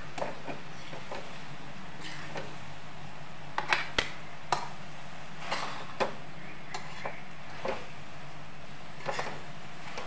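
A metal utensil knocking and clinking against a metal kadhai as noodles and vegetables are tossed and mixed, about a dozen irregular sharp knocks, over a steady low hum.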